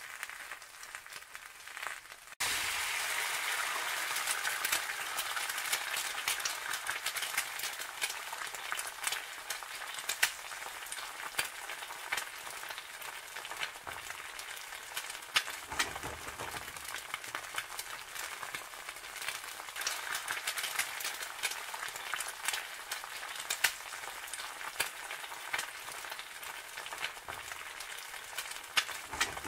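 Egg frying in hot oil in a nonstick pan: steady sizzling with many small crackling pops. It starts abruptly about two seconds in.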